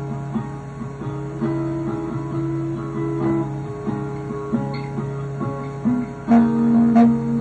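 Solo instrumental music on a plucked string instrument: slow notes ringing over held low notes, getting louder about six seconds in.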